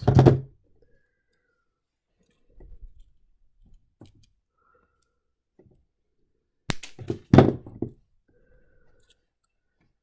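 Flush cutters snipping 22-gauge copper wire: a sharp snip a little under seven seconds in, followed closely by a louder knock. There is a thunk at the very start, and a few soft handling knocks come in between.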